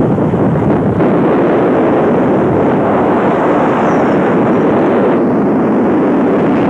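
Cars travelling at highway speed: a loud, steady rush of wind buffeting the microphone, mixed with road and engine noise.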